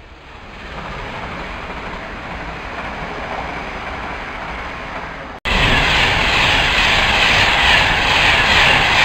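Train running past on the rails: a steady rush of wheel and rail noise that builds over the first second. About five seconds in it cuts abruptly to a much louder, closer pass with a bright hissing rush.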